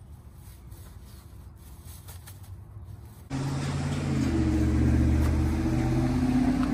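A motor vehicle's engine running on the road alongside, a steady low engine note that starts abruptly about three seconds in and grows a little louder around the middle. Before it there is only a faint background with a few light clicks.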